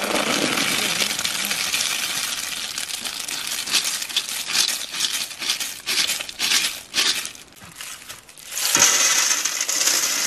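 River snails and water poured from a metal pot into a bamboo basket: a dense splashing rattle of shells that thins to scattered clicks as the last snails are shaken out. Near the end, a heap of snails pours from the basket onto a metal tray with a bright clatter of shells on metal.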